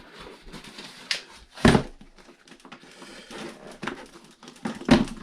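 Workshop handling noise: scattered light clicks and taps, with two louder knocks about a second and a half apart from the end.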